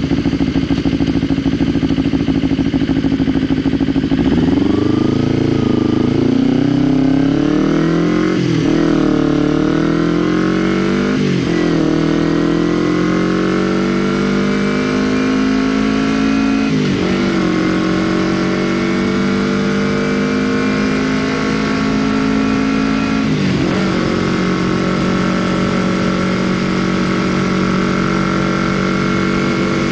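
Kawasaki Ninja 250R's parallel-twin engine idling for about four seconds, then pulling away and accelerating, its note rising through the gears with four upshifts, each a quick drop in pitch, before running at a steadier speed near the end.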